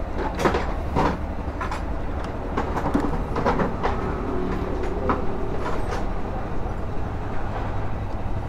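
A hand screwdriver makes scattered light metallic clicks and ticks as it works the fairing screws on a motorcycle. Underneath runs a steady low rumble of background traffic.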